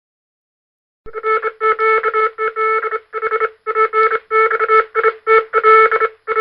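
Morse code machine sound effect: after about a second of silence, a fast run of electronic beeps keyed on and off in short groups, with a steady low tone, higher tones switching over it and sharp clicks at the key strokes.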